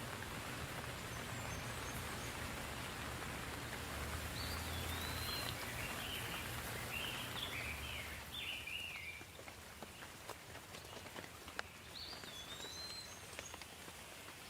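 Steady rain falling, easing about two-thirds of the way through into separate drips. A songbird sings a warbling phrase a few seconds in and gives a short falling whistle near the end.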